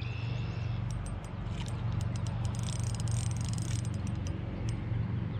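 Steady low hum of a Minn Kota electric trolling motor, with scattered sharp clicks and a brief high buzz about two and a half seconds in.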